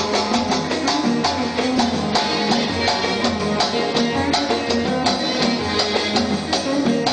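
Live Saudi party band playing an instrumental passage: oud and keyboard over a steady, quick beat of hand drums and percussion, with no singing.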